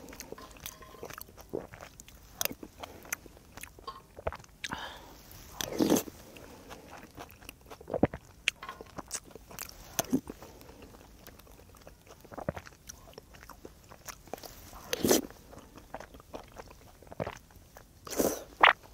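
Close-miked eating: chewing and slurping spicy rabokki noodles and broth from a spoon, with many small mouth clicks and a few louder slurps spread through.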